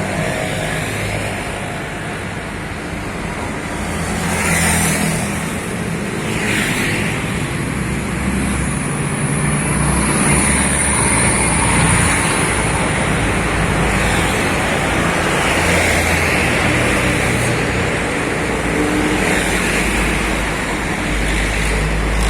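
Traffic on a main road: engines and tyre noise of vehicles passing one after another, swelling several times as each goes by.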